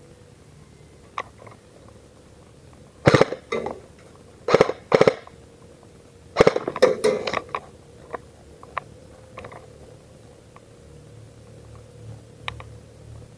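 Airsoft guns firing in short rapid bursts: one about three seconds in, two more around four and a half to five seconds, and a longer rattling burst around six and a half to seven and a half seconds. Scattered light clicks fall between the bursts.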